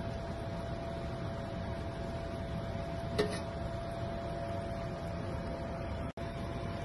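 Steady kitchen hum and hiss with a faint constant whine while a pot of fish soup simmers on the stove. There is one light clink about three seconds in, and the sound drops out for an instant near the end.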